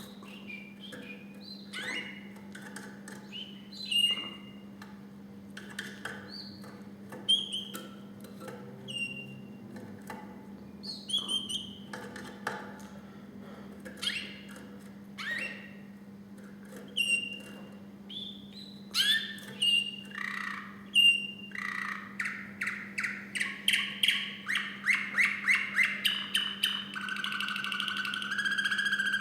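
Song canary singing: scattered short chirps and whistled notes, building after about twenty seconds into a fast run of repeated notes that ends in a rolling trill, over a low steady hum.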